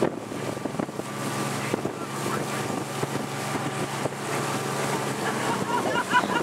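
Motorboat engine running steadily at speed while pulling a towed tube, with wind buffeting the microphone and water rushing past the hull.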